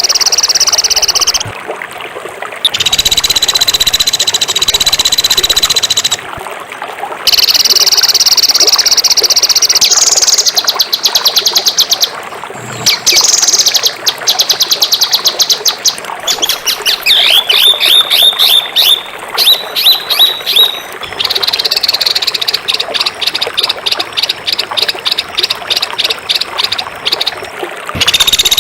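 Songbird song used as masteran: rapid-fire trills of fast repeated high notes, delivered in long harsh bursts a few seconds each with short breaks between them, and a run of quick falling chirps partway through.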